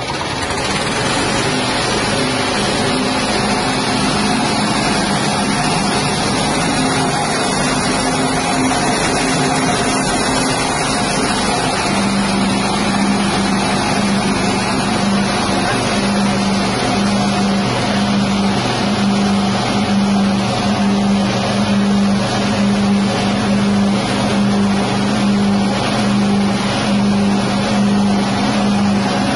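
6.5 hp single-cylinder petrol engine running steadily, driving a rice-husk grinding machine. Its note drops a little in pitch and grows stronger about twelve seconds in.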